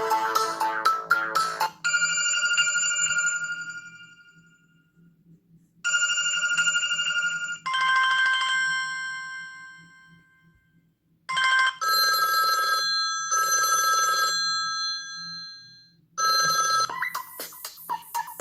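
Samsung Galaxy Ace Duos stock ringtones playing through the phone's speaker. A musical tune ends about two seconds in. Then comes a chime ringtone of bell-like tones, each fading out, with short gaps between them. Another busy musical ringtone starts near the end.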